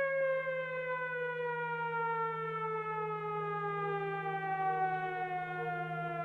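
Civil defense siren sounding one long tone that slowly falls in pitch, over a steady low hum.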